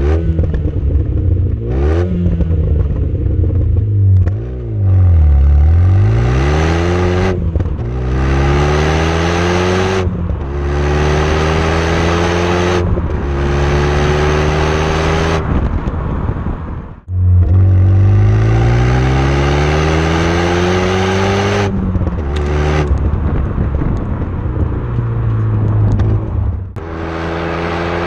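Modified exhaust of a Renault Megane 225's turbocharged 2.0-litre four-cylinder, heard close at the tailpipe under hard acceleration. The engine note climbs through each gear and drops at every shift, over and over.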